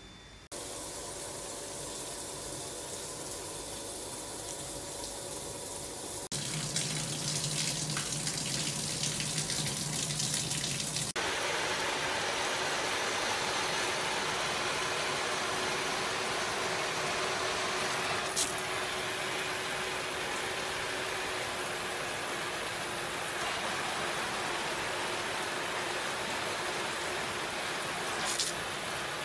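Water spraying from a shower panel's body massage jets, a steady rushing spray that starts suddenly and gets louder a few seconds later. There is a short tick near the middle and another near the end, as a hand turns one of the jet nozzles.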